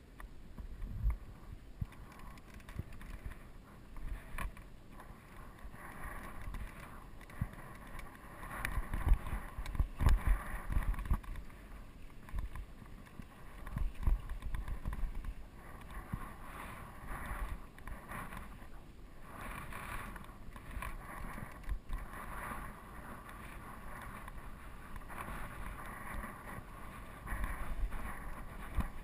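GT Peace 9'r steel hardtail mountain bike rolling fast down a rutted dirt trail: tyre noise on dirt with the bike jolting and rattling over bumps in irregular low knocks, heaviest a third of the way in, and wind on the microphone.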